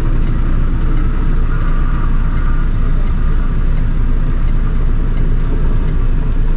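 Heavy goods vehicle's diesel engine idling steadily, a continuous low rumble heard from inside the cab.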